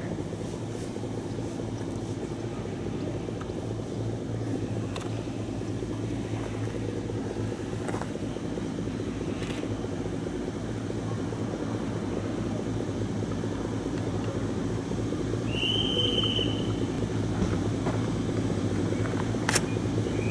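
SNCF X 2800 diesel railcar approaching slowly, its engine running with a steady low drone that grows a little louder as it nears. A brief high squeal sounds about three-quarters of the way in, and a single sharp click comes near the end.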